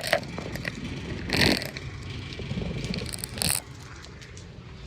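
Scraping and rustling handling noises with scattered clicks over a low rumble, including two louder noisy scrapes about a second and a half in and again near three and a half seconds.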